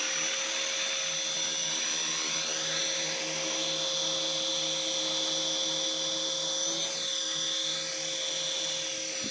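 RC model helicopter running with its main rotor spinning: a steady high-pitched motor whine with rotor whirring, as it settles from a low hover onto the grass.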